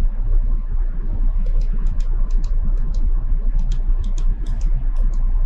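Powered-up CNC bridge saw giving a steady low hum, with a run of short, irregular clicks from about a second and a half in while the blade's tilt (A axis) is jogged in one-thousandth-inch steps.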